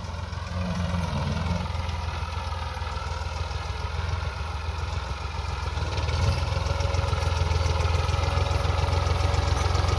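Massey Ferguson 260 tractor's three-cylinder diesel engine, fitted with a Stanadyne injection pump, running steadily under load while pulling a zero-till seed drill. It grows louder from about halfway through as the tractor comes closer.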